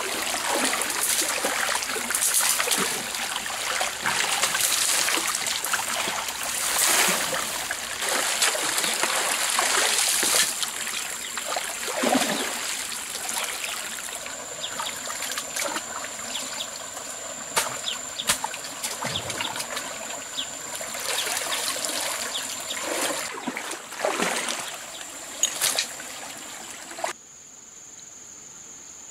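Stream water trickling and splashing, with irregular louder splashes throughout. A steady high insect buzz runs underneath from about a third of the way in, and near the end the water cuts off suddenly, leaving only that buzz.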